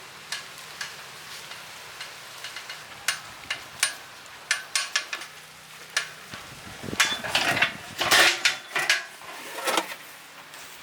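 Metal cooking utensils and vessels clinking and knocking as cooking things are handled, in scattered sharp strikes that come thicker towards the end.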